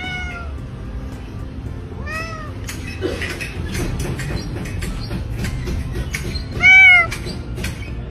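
A domestic cat meowing three times, each meow rising then falling in pitch: one at the start, one about two seconds in, and a louder one near the end.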